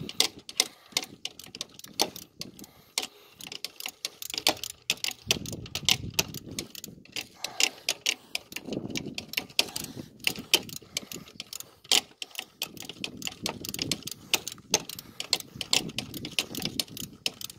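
Socket ratchet clicking in quick, uneven runs as a bolt is turned to tighten the new serpentine belt's adjuster.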